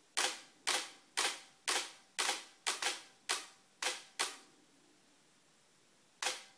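Nikon D800 DSLR shutter and mirror firing an automatic HDR bracket: about ten sharp clicks roughly half a second apart, then a last click after a gap of about two seconds as the bracket reaches its longest exposure.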